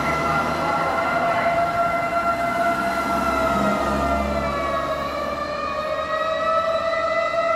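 Fire engine's motor siren wailing steadily, its pitch sagging about five seconds in and climbing back up near the end. A low engine rumble sits under it around the middle.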